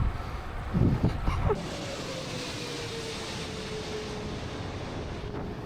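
Wind buffeting the microphone for about a second and a half, then a steady rushing noise with a faint tone that slowly falls in pitch.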